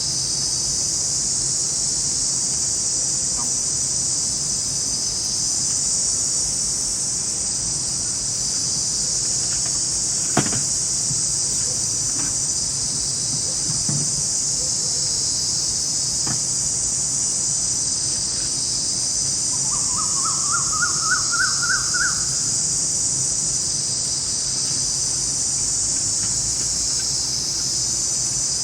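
Dense, steady chorus of forest insects, a continuous high-pitched shrill drone. About twenty seconds in, a bird gives a quick run of about eight short notes, each a little higher than the last, and a single click sounds about ten seconds in.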